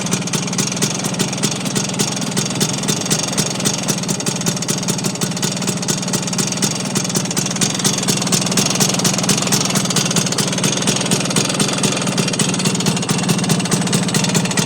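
Vespa scooter engine running with a regular knock repeating through it. The owner suspects worn engine bearings, since the knock does not change with the clutch pulled in or with the gear selected.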